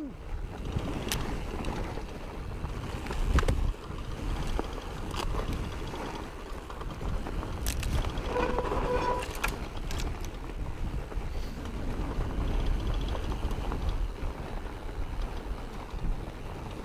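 Carbon fat bike being ridden on a trail: steady tyre and wind rumble, with the rattle and knocks of the bike over bumps. A brief pitched squeal comes about halfway through.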